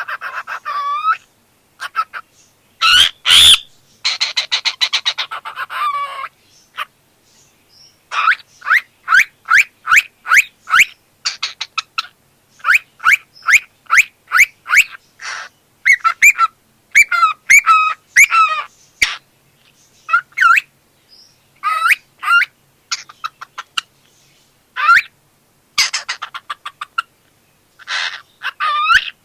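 Pet cockatiel chirping: short calls in runs of about three a second, broken by pauses. A louder harsh call comes about three seconds in, followed by a buzzy, rattling call.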